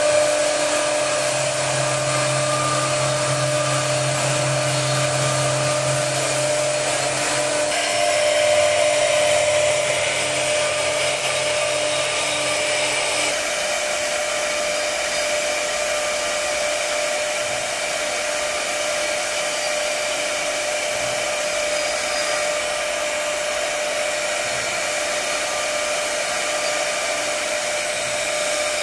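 CNC router spindle cutting into a wooden pillar turning on the machine's rotary axis: a steady tone over the hiss of the bit milling the wood. The sound shifts slightly about eight and thirteen seconds in.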